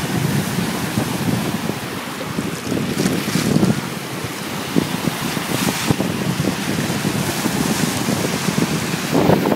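Sea surf breaking and washing up the beach in a steady rush, with wind buffeting the microphone.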